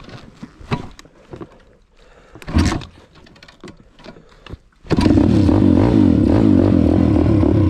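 MRF 140 RC-Z pit bike's single-cylinder four-stroke engine being started. It gives one short cough about two and a half seconds in, catches just before five seconds and settles into a steady idle. The rider reckons the engine has probably cooled down.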